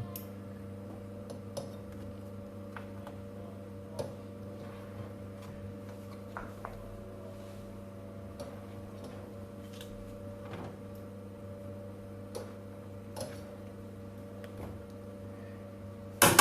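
Oven running with a steady electric hum, with scattered faint ticks every second or so; a loud clatter just before the end.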